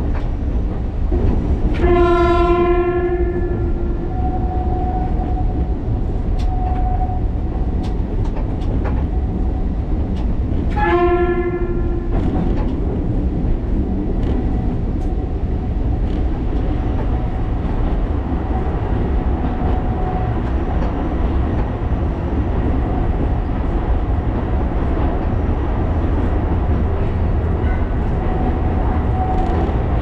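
Alishan Forest Railway train running with a steady low rumble; the train horn sounds two single-note blasts, a longer one about two seconds in and a shorter one about eleven seconds in.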